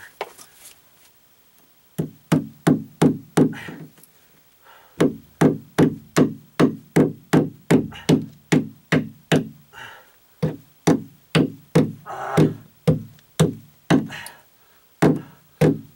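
Hammer driving cable staples into a wooden joist to fasten Romex cable: a long run of sharp knocks, about two to three a second, broken by a couple of short pauses.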